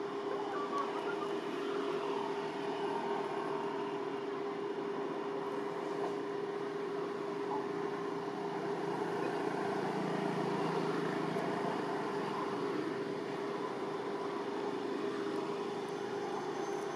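Steady background noise with a constant low hum, swelling slightly around the middle.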